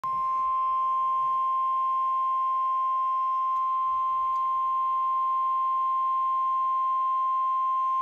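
Midland weather alert radio's speaker sounding the NOAA Weather Radio warning alarm tone: one long, steady, unwavering high beep. It signals that a warning (here a tornado warning) is about to be read.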